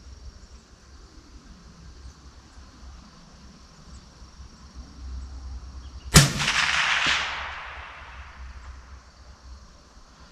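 A single rifle shot from a Ruger SFAR in .308 Winchester, about six seconds in, with its report echoing away over the next couple of seconds.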